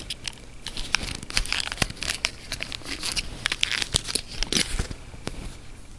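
Thin plastic lid being worked off a small round plastic cup of wax melts, making an irregular run of crinkling and small clicks.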